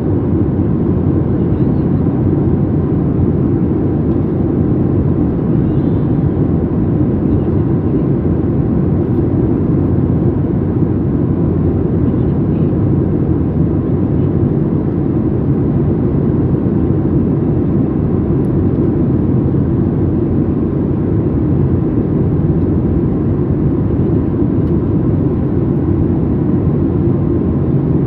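Steady cabin noise inside a Boeing 737 MAX 8 in flight, heard from a window seat over the wing: the deep, even rush of airflow and the CFM LEAP-1B engines, unchanging throughout.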